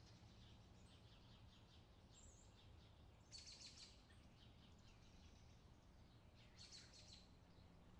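Near silence: quiet room tone with faint, soft high ticks and two brief rustles, about three and a half seconds apart.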